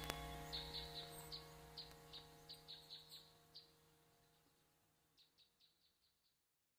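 A song's outro fading out: held chords dying away under a string of short, high bird chirps that carry on faintly after the music has faded.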